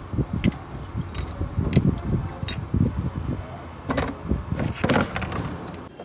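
Light metallic clinks and rattles of a hand tool and small metal engine parts being handled over an open cylinder head, with two louder handling scrapes about four and five seconds in.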